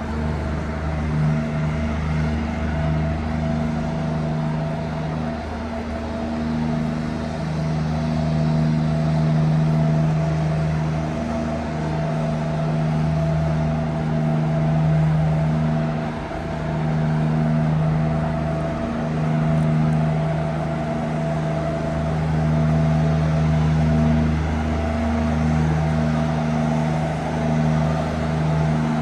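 Traffic on a busy city avenue: a steady low hum of cars and other vehicles going by, swelling and easing gently as they pass.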